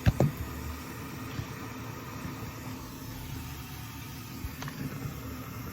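Water running steadily from a tap into a container as it fills, with a sharp knock right at the start.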